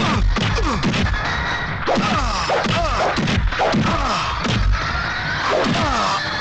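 Dubbed film-fight sound effects: a rapid run of punch and kick whacks and thuds, each with a swoosh that falls in pitch, about two or three a second, over a dramatic background score.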